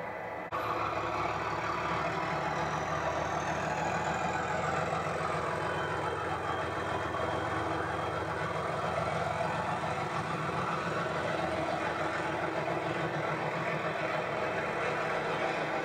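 Class 37 diesel locomotive's English Electric V12 engine running as it hauls a train past close by, a steady engine sound with a high whine rising in pitch over the first few seconds.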